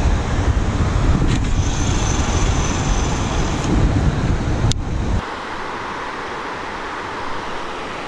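Low rumble of wind and handling noise on a first-person camera's microphone as a baitcasting rod is cast from a kayak, with a sharp click about four and a half seconds in. The rumble then stops abruptly, leaving a quieter, steady hiss.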